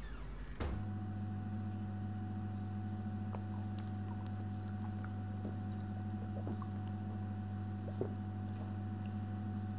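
A steady low hum starts suddenly about half a second in and holds, with faint scattered ticks and small liquid sounds over it as a glass bottle is drunk from.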